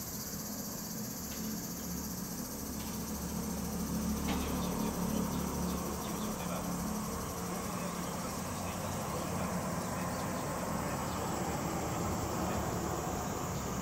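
A chorus of cicadas singing, a steady high-pitched shrill, with a low steady hum underneath.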